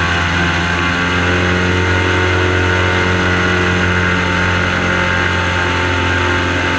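Airboat's engine and propeller running steadily while the boat is underway: a loud, even drone.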